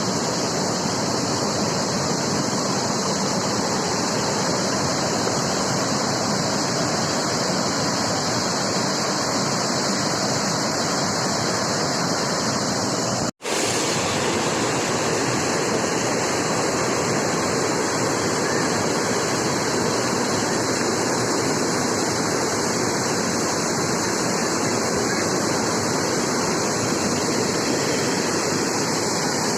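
Steady roar of rushing water, broken once by a split-second cut to silence about thirteen seconds in.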